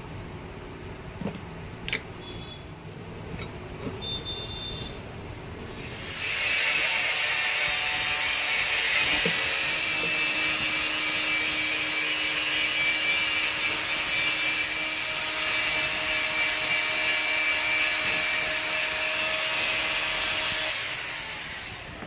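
Sewing machine running steadily for about fourteen seconds, starting about six seconds in and stopping shortly before the end, with a fast mechanical clatter; a single click sounds before it starts.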